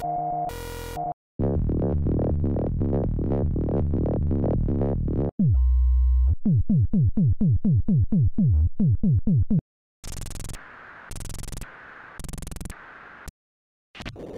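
Loops from a Behringer CAT analog synthesizer played back one after another: a few pitched blips, then a fast run of repeating notes, a low held drone, a string of quick downward-sweeping zaps at about four a second, and near the end a few noisy hits with gaps between them.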